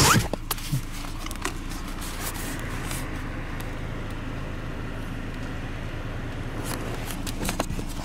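Steady car cabin noise: engine and road hum, with a few light clicks in the first second and near the end.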